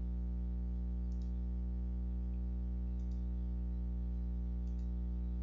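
Steady electrical hum with a few faint computer mouse clicks, about one, three and five seconds in.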